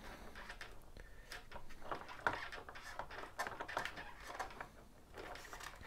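Faint handling noises: light, irregular clicks and taps of a plastic propeller being fitted and shifted by hand on a motor's prop adapter.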